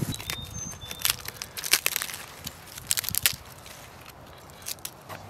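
Dry bark and dead wood crackling and crunching as pieces are broken and handled to make fire tinder. The sharp cracks come in three quick clusters in the first three and a half seconds, then only a few faint ticks.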